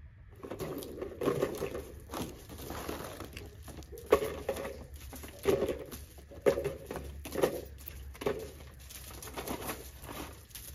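A puppy chewing and tugging at a piece of crinkly plastic: irregular crinkles, tearing and crunches about once a second.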